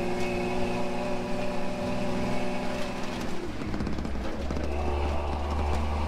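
Toyota FJ40 Land Cruiser driving along a gravel trail, its engine running steadily, heard from inside the cab. About halfway through, the sound shifts to a deeper, steady rumble.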